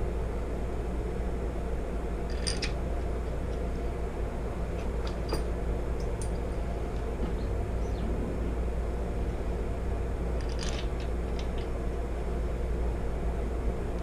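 Steady low hum and noise of a garage, with a handful of short, light metallic clinks as engine parts and tools are handled during assembly.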